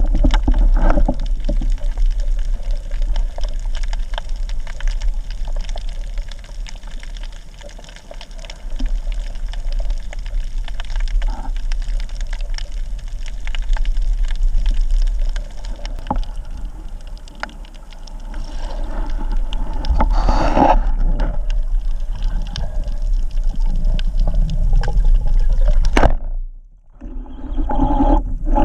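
Underwater ambience on a shore dive: a steady rush of water with many sharp clicks and crackles, a louder gush of water about twenty seconds in, and a brief dropout near the end.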